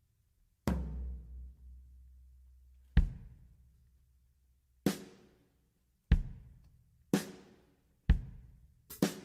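Drum kit struck one hit at a time, a second or two apart. The first hit leaves a low boom ringing for about two seconds, and the hits come quicker near the end, two in quick succession.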